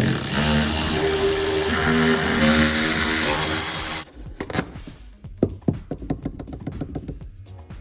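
A power tool spinning off the speed nuts that hold an underbody panel, running for about four seconds with its pitch shifting under load. It then stops suddenly, followed by scattered clicks and knocks of the nuts and panel being handled.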